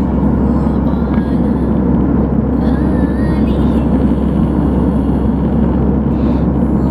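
Steady airliner cabin noise in cruise flight: an even, low rush of engine and airflow heard from a window seat.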